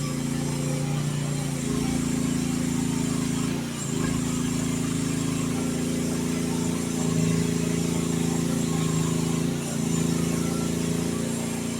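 Youtop YT15 mini excavator's engine running steadily under working load, its pitch shifting slightly a few times as the hydraulics are worked, with brief dips near 4 seconds and 10 seconds.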